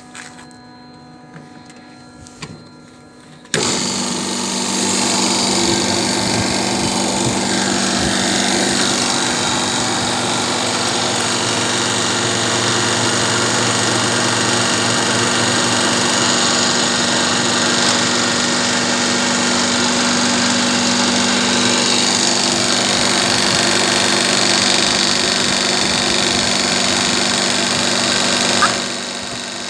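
A refrigeration condensing unit's compressor cuts in abruptly about three and a half seconds in and then runs steadily with an even mechanical hum. Near the end there is a brief click and the sound dips for a moment.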